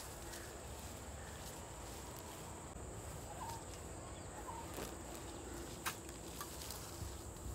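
Quiet outdoor ambience: a steady high-pitched insect drone, with a few faint sharp clicks and rustles in the dry grass.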